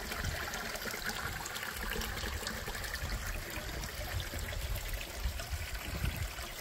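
Creek water trickling and splashing down between granite boulders in a small waterfall, a steady sound.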